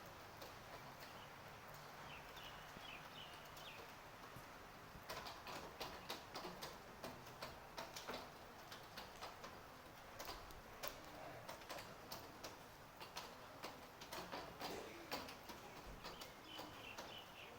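Light rain falling steadily, with irregular drips tapping on hard surfaces; the drips come thicker from about five seconds in.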